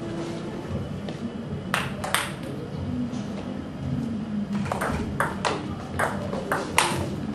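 Table tennis ball clicking sharply off rackets and table: two single clicks about two seconds in, then a rally of quick clicks from a little past halfway, about two to three a second. Low murmur of spectators underneath.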